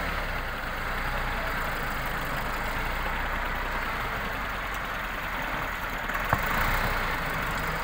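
Diesel farm tractor engine running steadily while its front loader raises a bucket of soil, with a single sharp knock about six seconds in.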